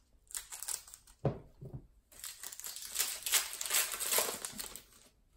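Trading card pack wrapper being cut open with scissors and handled. A few short rustles come in the first two seconds, then about three seconds of steady crinkling as the wrapper is opened and the cards pulled out.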